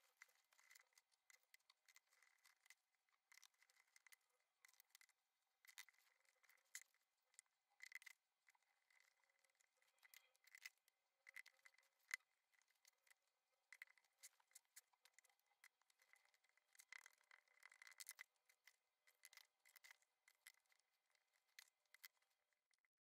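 Faint, scattered rustling and crackling of gritty potting mix with sand and perlite as it is pressed and firmed around plant stems by hand, with short scrapes of a plastic scoop.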